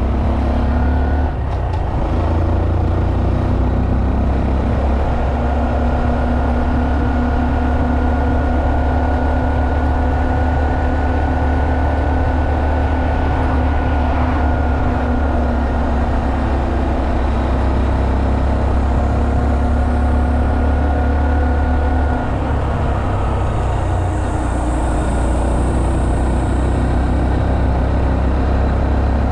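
Honda Monkey 125's single-cylinder four-stroke engine running steadily under way, with brief changes in the engine note about a second in and again about 22 seconds in.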